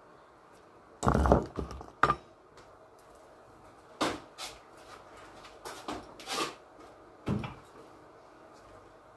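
Irregular knocks and clunks of a small dirt bike being handled and moved, the loudest and longest about a second in, with a few more spread through the rest.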